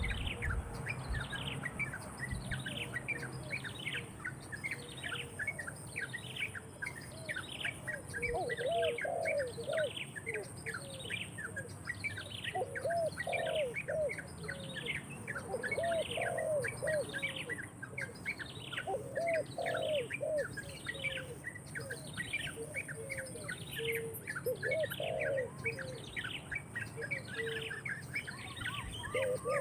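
Birds calling: a high call that slides downward, repeated about once a second, with bursts of low cooing from about eight seconds in.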